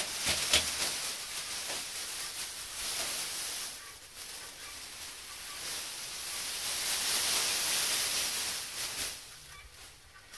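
Dry hay being pulled apart from a bale by hand and spread as fresh bedding. The stems rustle and crackle in two long swells, with a few sharp snaps about half a second in.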